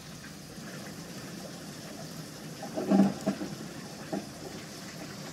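Heavy rain pouring down, a steady hiss, with a short low sound about three seconds in.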